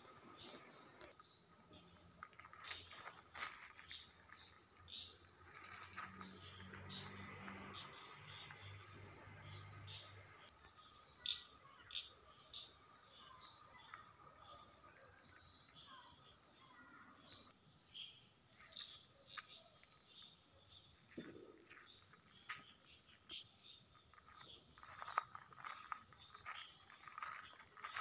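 Night insects such as crickets chirping in a steady, fast-pulsing high trill, with a second, lower pulsing chorus beneath it. The trill grows much louder about two-thirds of the way through.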